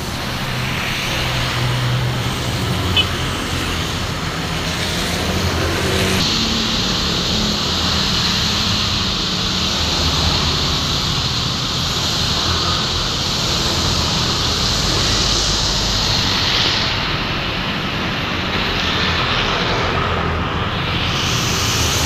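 Steady road traffic on a rain-wet road: motorbike and bus engines passing, with tyres hissing on the wet asphalt.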